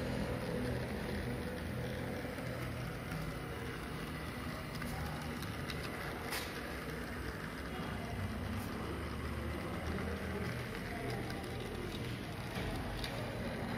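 Model railway track-inspection motor car running along the layout: its small electric motor and wheels on the rails make a steady running hum, with a few faint clicks now and then.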